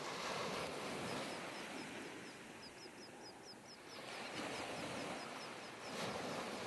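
Shallow waves washing in over sand, with a bird giving a rapid series of high chirps through most of it.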